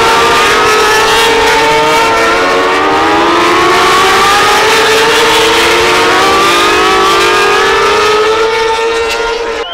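Racing motorcycles passing at speed on the circuit, several engine notes overlapping and climbing steadily in pitch as they accelerate. The sound drops off suddenly near the end.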